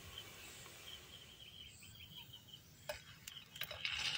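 Faint quiet ambience with soft chirping. A few light clicks come near the end, followed by a short rush of noise.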